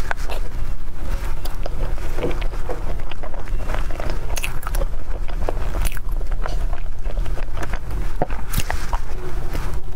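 Close-up biting and chewing of a soft bun filled with thick matcha chocolate ganache: wet mouth sounds with many small irregular clicks.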